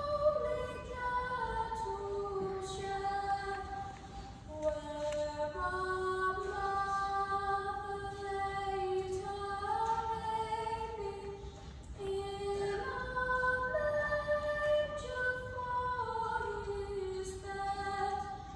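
A school choir singing a carol: held notes that move on about once a second in a slow, smooth melody.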